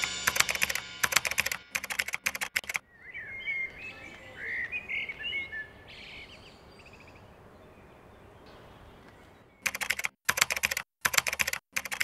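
Rapid keyboard-typing clicks, a sound effect for captions being typed onto the screen, in two runs: over the first three seconds and again from about ten seconds in. Between them, birds chirp a few times, then a faint steady hiss.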